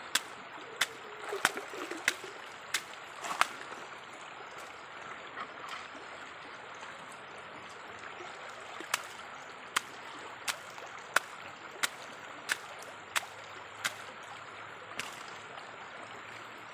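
Shallow river water running steadily, under sharp knocks that come roughly every two-thirds of a second. They come in two runs, one at the start and one from about nine seconds in. They sound like a hand digging tool striking hard gravel and stones in the riverbed.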